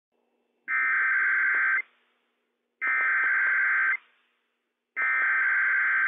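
Emergency Alert System SAME header from a NOAA Weather Radio broadcast: three bursts of digital data tones, each about a second long and about two seconds apart, the coded opening of a Required Weekly Test.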